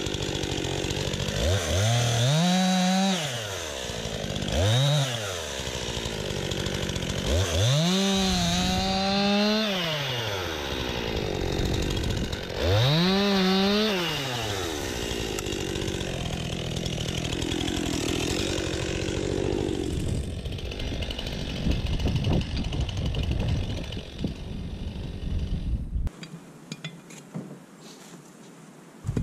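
Stihl MS 261 two-stroke chainsaw bucking logs, revving up and back down four times as it cuts, then running more evenly. It cuts off with about three seconds left.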